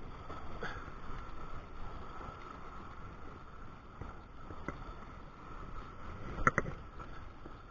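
Steady rushing of wind and river water, with a few small clicks and knocks, the loudest about six and a half seconds in.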